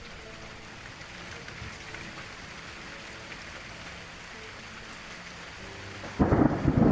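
Steady rain, then a loud clap of thunder breaking in about six seconds in, rumbling on. A faint steady tone sits underneath the rain.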